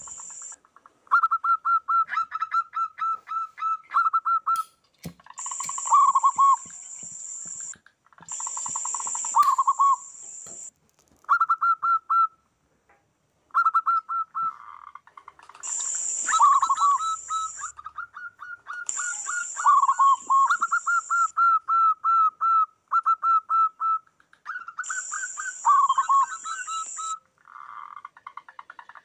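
Zebra doves (perkutut) cooing, several calling over one another: runs of quick staccato notes, about seven a second, broken by lower drawn-out coos, with a short pause about halfway. A high hissing buzz comes in bursts of about two seconds, five times.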